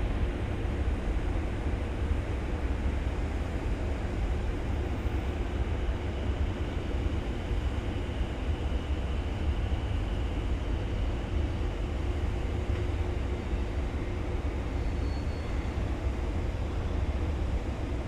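A freight train running past with a steady, unbroken low rumble.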